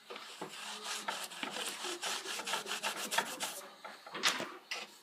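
Magic Eraser scrubbing a pinball playfield in quick, rasping back-and-forth strokes, with alcohol, to clean off grime.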